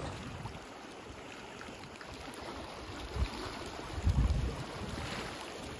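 Wind over choppy lake water with small waves washing against shoreline rocks, and gusts buffeting the microphone about three and four seconds in.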